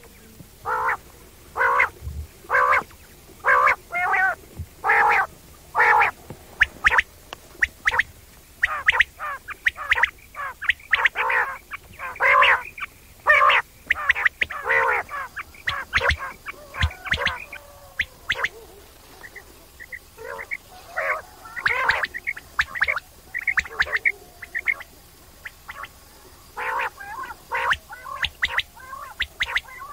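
Quail calling over and over in short pitched notes. The calls come about one a second at first, then faster and overlapping, thin out for a few seconds past the middle, and pick up again near the end.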